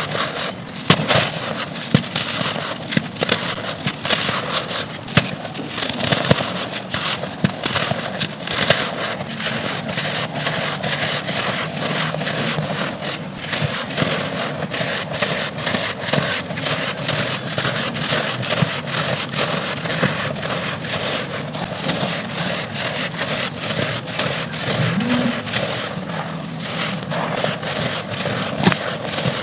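Dry red dirt chunks being crushed and crumbling, with a dense, irregular crackle of small breaking pieces.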